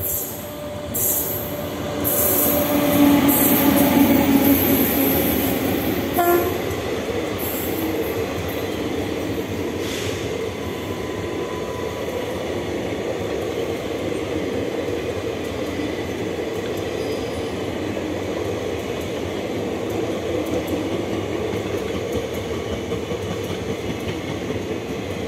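WAP7 electric locomotive passing with the express, loudest over the first six seconds, then a long string of passenger coaches rolling by with a steady wheel-on-rail rumble.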